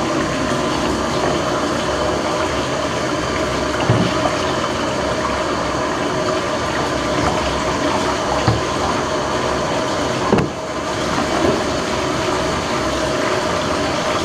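Hot water running steadily from a bathtub spout and pouring over an aerosol can of spray wall texture held beneath it, with a few brief knocks.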